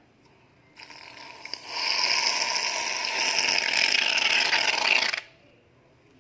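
Aerosol can of shaving foam spraying out foam: a hissing, sputtering spray that starts softly about a second in, runs loud and steady for about three and a half seconds, then cuts off suddenly.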